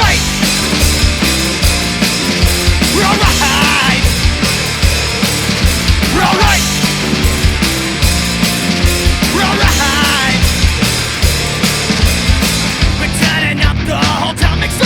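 Loud punk-rock song: distorted guitars and bass over fast, steady drums. Short wavering high lines break through about every three or four seconds.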